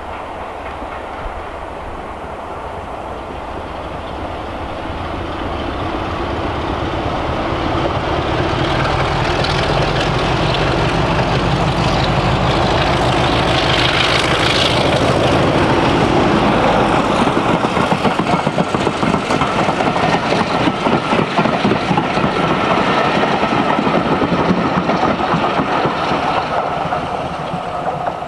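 BR Class 33 diesel locomotive's Sulzer eight-cylinder engine working under power as it approaches and passes, growing louder to a peak about halfway through. After that the coaches roll by with the wheels clattering on the rails.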